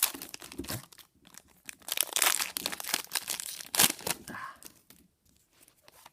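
Foil Pokémon booster pack wrapper being torn open and crinkled, in two spells of crackling rustle, the loudest just before four seconds in, dying down near the end.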